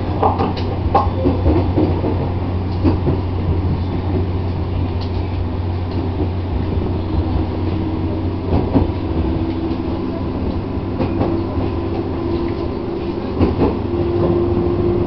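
JR 205 series electric commuter train running, heard from inside the passenger car: a steady low rumble with scattered rail-joint clicks. A humming tone comes in about halfway and rises slightly near the end.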